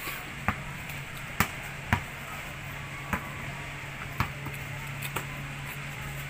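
Basketball bouncing on a concrete court: a handful of sharp, separate bounces at uneven spacing, over a steady low hum.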